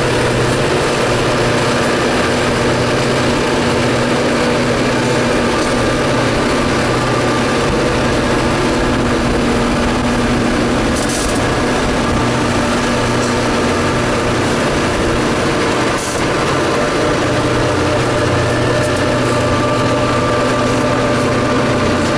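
Steady drone of the EMD F-unit diesel locomotives running past, mixed with a constant rushing road and wind noise from a car pacing the train. The level dips briefly about two-thirds of the way through.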